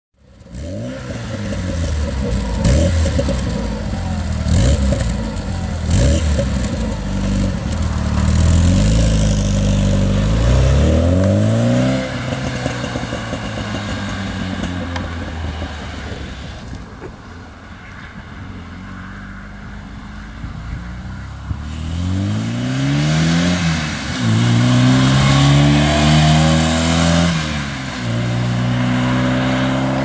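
1982 Porsche 924's 2.0-litre four-cylinder engine through a Dansk exhaust, revving and accelerating hard, its pitch climbing again and again as it goes up through the gears. It eases off to a steadier, quieter run near the middle, then pulls hard again. A few sharp cracks come during the early revving.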